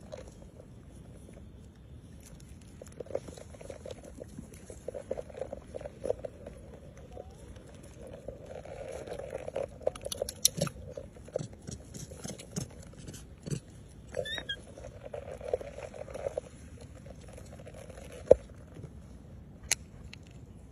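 Baby macaque mouthing and chewing close to the microphone: scattered clicks and crunching, with a brief squeak about two-thirds of the way through and one sharp click near the end.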